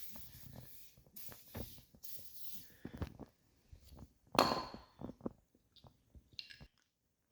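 Metal parts and hand tools being handled in a workshop during a teardown: irregular scraping and small clicks, with one louder ringing metal clink about four and a half seconds in and a lighter one about two seconds later.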